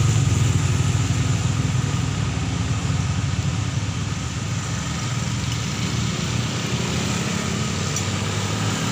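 Road traffic on a wet road: car and motorcycle engines passing with tyre hiss. A low engine rumble is strongest at first and fades over the first few seconds.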